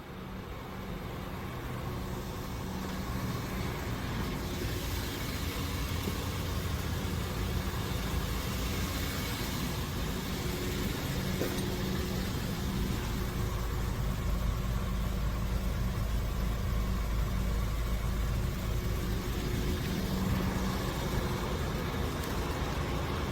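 A car running, with a steady mix of engine and road noise and a low rumble. It fades in over the first few seconds, then holds steady.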